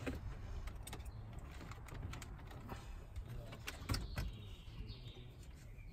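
Scattered clicks and knocks of plastic and metal as the factory head unit and its cables are worked loose from the Mercedes E-Class dashboard, the sharpest knock about four seconds in, over a low steady hum.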